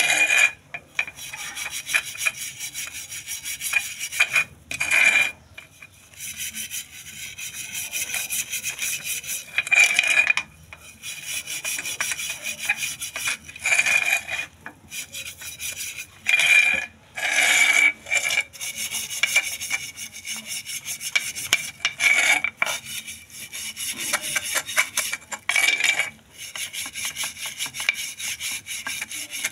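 Scrubbing the metal pan supports of a gas stove with soapy water: rapid back-and-forth scraping strokes in runs of a few seconds, broken by short pauses.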